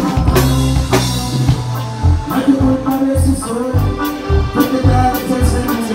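Live Mexican tierra caliente band music from a stage sound system: keyboards, bass and drums on a steady beat, with a singer over it.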